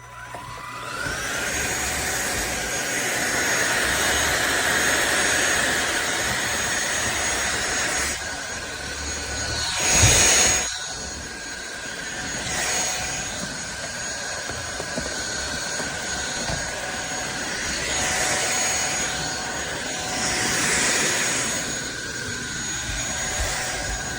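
SunSare X7A cordless stick vacuum switched on, its motor winding up in a rising whine and then running with a steady high-pitched whine and rush of suction air. The rush swells and fades as it moves, with one brief, louder rush about ten seconds in.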